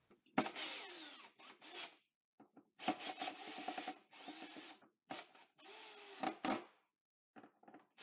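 Ryobi cordless drill/driver running in several short bursts, its motor pitch rising and falling, as it drives the mounting screws of a duplex receptacle into a metal outlet box.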